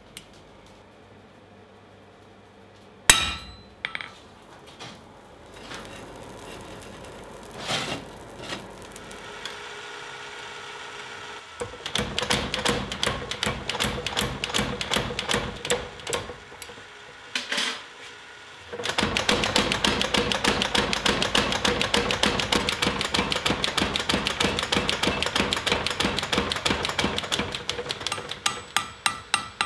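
Power hammer pounding a red-hot steel bar in rapid, even blows, several a second, drawing its end out to a taper, with a short pause partway through. Earlier, a single sharp metal clang and some scattered knocks.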